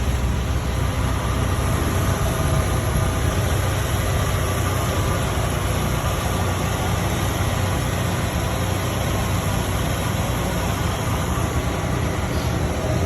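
1990 Jeep Wrangler YJ's carbureted engine running steadily, its exhaust manifold leak fixed and power steering pump and lines newly replaced.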